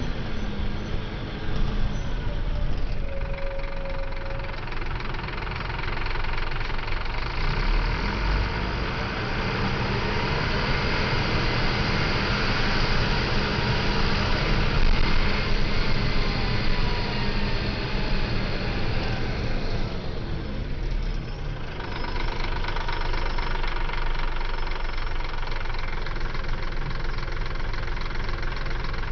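Scania L94UB city bus's diesel engine running. Its pitch rises and falls through the middle as the engine revs under way, dips briefly about two-thirds of the way in, then settles to a steadier note.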